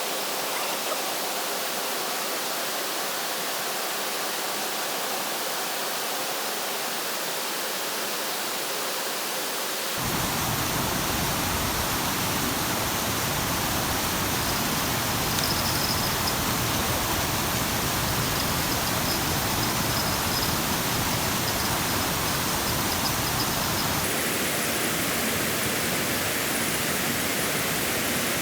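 Steady rushing hiss of rain and flowing river water. Its tone changes abruptly about ten seconds in and again near the end.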